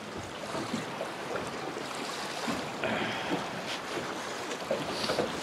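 Steady wind noise on the microphone over choppy river water lapping around a small boat.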